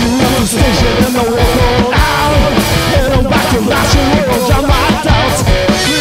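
Live punk-blues rock band playing loudly: electric guitar over a steady beat.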